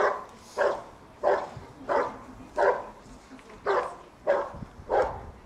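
A dog barking steadily and rhythmically, about one and a half barks a second, while it guards a helper in the blind: the hold-and-bark of IPO protection work.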